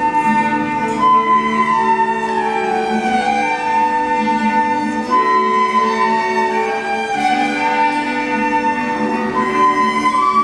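Small instrumental ensemble of violins and flutes with clarinet and classical guitar playing a slow melody in long held notes.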